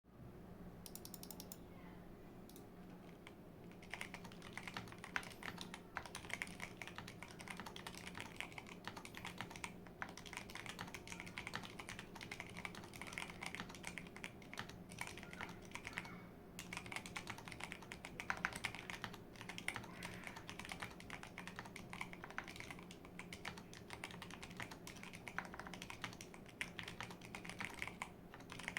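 Fast continuous typing on a modded Imperion Trooper 7 TKL mechanical keyboard: lubed Outemu Box brown light tactile switches under PBT Cherry-profile keycaps, on a PCB with tape and PE foam mods. A few single keystrokes first, then steady typing from about four seconds in, with brief pauses.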